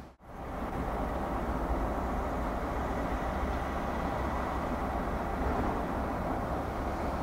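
Distant diesel locomotives running, a steady low rumble, after a momentary drop-out right at the start.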